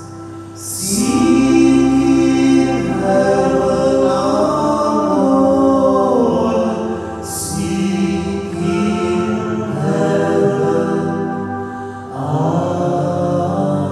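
A slow sung hymn or chant with long held notes over a sustained instrumental accompaniment.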